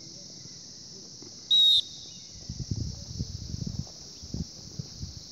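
One short, loud blast on a sports whistle about a second and a half in, over a steady high chorus of insects. A few seconds of low thumps and rumbling follow.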